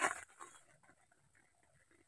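Faint trickle of hot water poured from a kettle into a steel mug, after a brief louder sound that dies away in the first moments.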